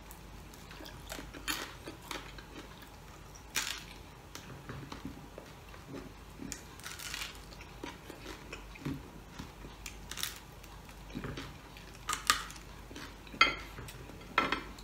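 Eating close to the microphone: a person chewing and biting at crispy pork knuckle on the bone held in the hands, with a dozen or so short sharp clicks and crackles of food and plate handling scattered through.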